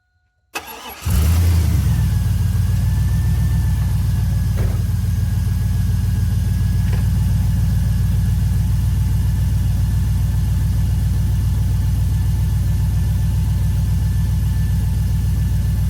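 1999 Chevy Silverado 1500's 5.3-litre V8 cranked briefly and catching about a second in, then idling steadily, with a whine that drops in pitch just after start and then holds steady. This is the first run after a water pump replacement, with the engine checked for coolant leaks.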